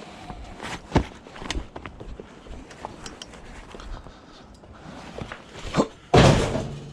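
Footsteps with scattered clicks and knocks, then a loud rustling thump about six seconds in.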